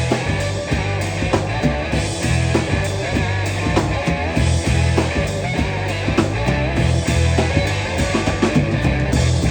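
Live rock trio playing an instrumental passage: electric guitar, bass and drum kit with a steady beat.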